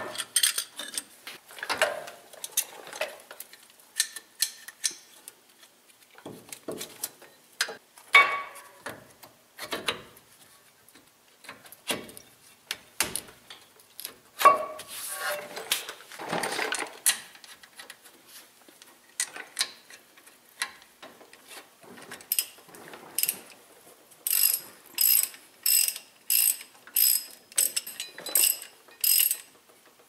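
Metal clinks, knocks and scrapes of a brake caliper and hand tools being worked, including a C-clamp being wound against the old pad to push the caliper piston back. In the last several seconds a ratchet wrench clicks in even strokes, about two a second, tightening the 13 mm caliper bolts.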